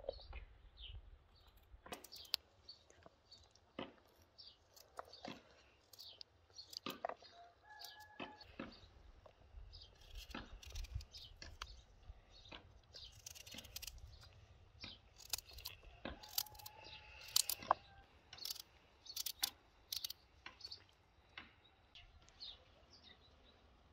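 Knife cutting a carrot held in the hand, giving sharp irregular clicks as the blade goes through and the pieces drop into a plastic bowl. Birds chirp faintly now and then.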